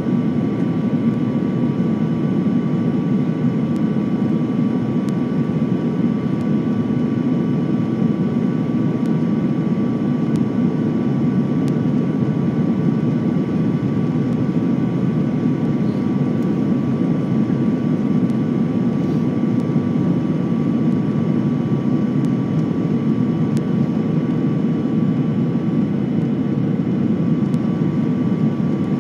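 Steady airliner cabin noise on the approach to landing: jet engines and rushing air heard from inside the cabin, with a thin steady whine above it.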